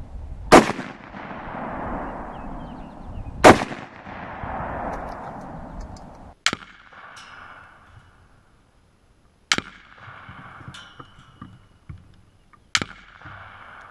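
Five rifle shots from a .223 AR-15, about three seconds apart, the first two loudest with a long echo and the later ones followed by a brief ringing. They are fired at a small hand-mixed binary exploding target that gives little reaction, which the shooter puts down to measuring the mix wrong.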